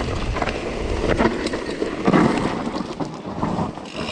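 Wind buffeting the microphone over the tyre rumble and rattling of a mountain bike riding down a trail, with scattered clicks and clatters, a little louder about two seconds in and easing off near the end.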